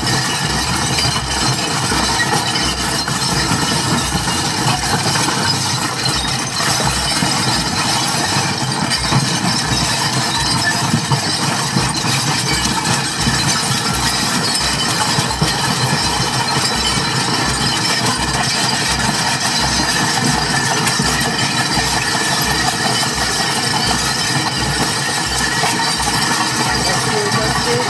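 Loud, dense wall of amplified noise from a live experimental sound act built on washing-up, with a low pulse repeating about twice a second underneath.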